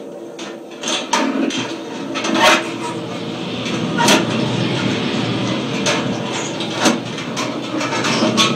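Live experimental electronic noise music: a dense crackling, grainy texture punctuated by about half a dozen sharp clicks at irregular intervals, with a hissing wash building from about three seconds in.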